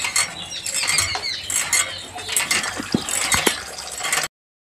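A crowd of small birds chirping busily, mixed with scattered sharp clicks; the sound cuts off abruptly about four seconds in.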